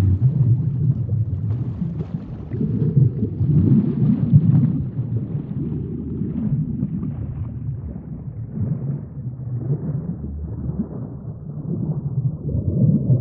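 Underwater sea ambience: a low, rumbling wash of water that swells and eases every few seconds, with a fainter hiss above it.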